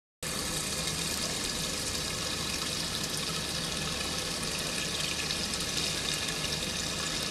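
Steady rush of running water in a coral holding tank, cutting in abruptly just after the start.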